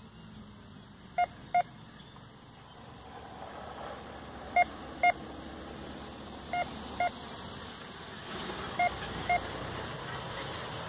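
Metal detector beeping in short double beeps, four pairs about two seconds apart, as its search coil sweeps back and forth over a buried metal target.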